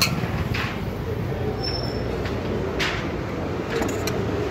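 Steady low street rumble with a few sharp clinks of a steel spoon against a steel mixing bowl while sprouts chaat is stirred.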